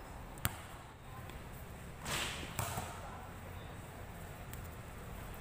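A basketball's single sharp knock about half a second in, then a short rush of noise about two seconds in, over faint open-air background.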